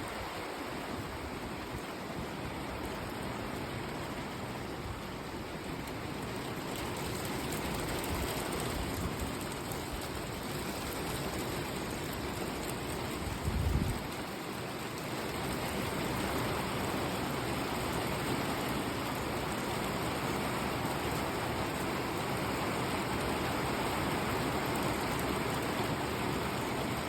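Heavy rain pouring down and drumming on a wooden deck, a steady dense roar that grows a little louder partway through. A brief low thump about halfway through.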